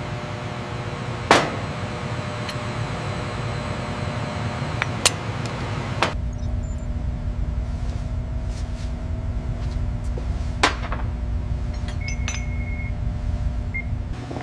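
Steady machine hum and low rumble of workshop equipment, with a few sharp metallic clanks and clinks. The rumble deepens about six seconds in, and a short high electronic beep sounds near the end.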